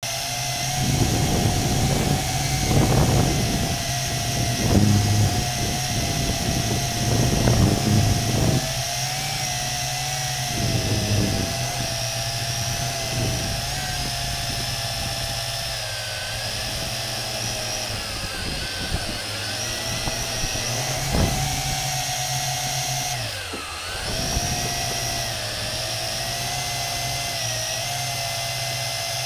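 Tarantula X6 hexacopter's motors and propellers whining steadily, heard from the camera mounted on the craft, with a gusty low rumble over roughly the first ten seconds. About 23 seconds in the whine dips briefly in pitch and loudness, then comes back up.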